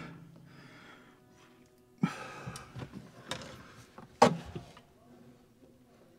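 A handful of sharp knocks and thumps, starting about two seconds in, the loudest a little after four seconds: hands working a rubber windshield seal and glass into a truck cab's opening from inside.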